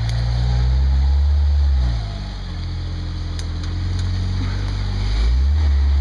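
Jeep TJ Wrangler's engine revving as it crawls through mud, easing off about two seconds in and revving up again near the end.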